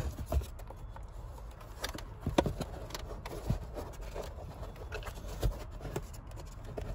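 Handling noise from the DSC Sport suspension controller being manoeuvred up into its mounting place: a few sharp knocks and scrapes of the finned controller case against its surroundings, over a low rumble of hands and cables moving.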